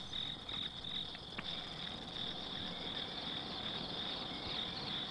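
Night insects chirping in a steady high trill, with a few faint light clicks in the first second or so.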